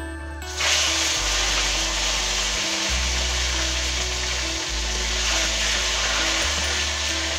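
A piece of snakehead fish sizzling in hot oil in a karahi, the hiss starting suddenly about half a second in as the fish goes into the oil and running on steadily. Background music with a slow bass line plays underneath.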